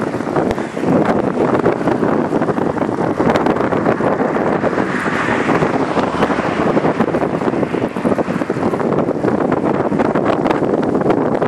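Wind rushing and buffeting over a camera microphone carried on a moving road bicycle, a steady loud roar with constant gusty flutter.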